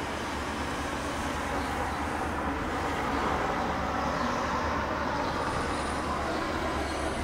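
Bombardier CL-415T water bomber's twin turboprop engines heard as a steady drone as it flies past, growing a little louder about halfway through.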